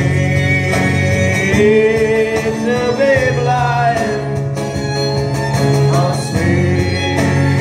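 Live acoustic folk-rock band playing: strummed acoustic guitars, bass guitar and fiddle under a lead melody of long held notes that bend slightly.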